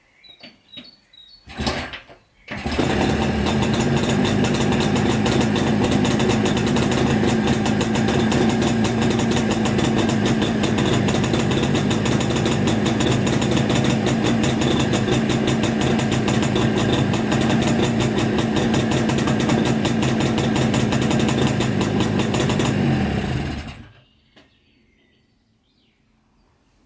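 Jawa 350 two-stroke parallel-twin motorcycle engine starting about two seconds in after a brief catch, running steadily at an even pitch for about twenty seconds, then shut off.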